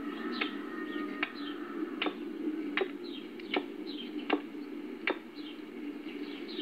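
Hand-tool blows on stone rubble: a sharp knock about every three quarters of a second, at an even pace, over a steady low hum, with birds chirping in short falling notes.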